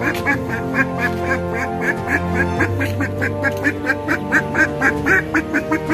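A man imitating a duck's quacking with his voice: a fast, even run of short quacks, about five a second, over background music.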